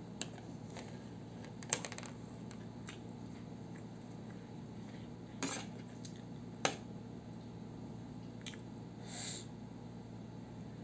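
Metal fork clinking and scraping against a plate: a few sharp clinks spread out, the loudest about two seconds in, over a steady low hum.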